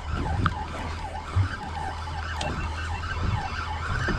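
Spinning reel being cranked to wind line in, its gears whirring in a rising and falling warble with each turn, over the steady drone of the boat's engine. Two short knocks sound within the first second and a half.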